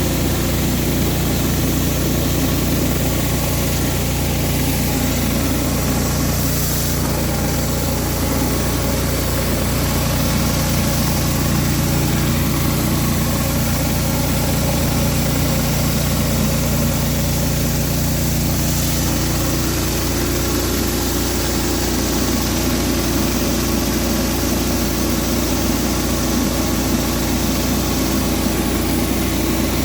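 Pressure washer's engine running steadily under a constant hiss. Its note changes about twenty seconds in.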